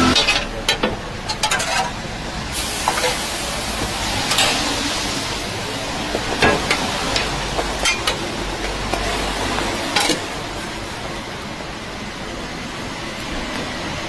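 Steady frying sizzle from a hot flat-top griddle where bread is toasting under a steel press, with scattered sharp knocks and clinks of metal tools against the griddle plate.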